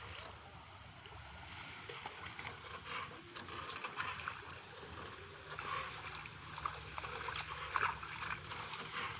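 Faint outdoor field ambience: a steady high hiss with scattered soft rustles and light ticks.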